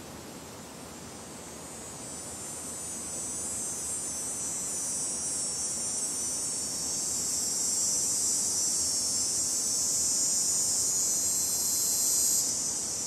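Insects in the creekside trees making a high, steady chirring chorus that grows louder through most of the stretch and drops off abruptly near the end, over a low hiss of outdoor noise.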